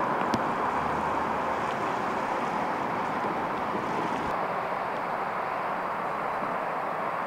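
Steady outdoor street noise: a continuous hum of traffic and vehicles with no distinct events. The sound shifts slightly about four seconds in, at a cut between shots.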